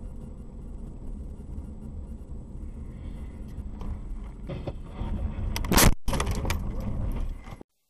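Inside a car on a snowy road: a steady low road and engine rumble, then knocks and rattling and a loud thud about six seconds in as the car crashes into snow that covers the windscreen. The sound cuts off abruptly near the end.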